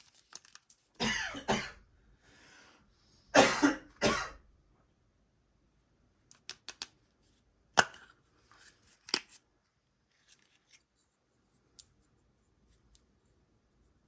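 A surprise egg being handled and opened: two short bursts of scraping and rustling, then a scatter of sharp clicks and snaps as the shell comes apart, fading to a few faint ticks.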